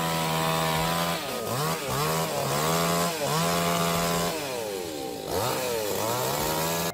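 Chainsaw engine running at high revs while cutting. The pitch sags and climbs back several times as the throttle eases and opens again, with a longer drop about four to five seconds in before it revs back up.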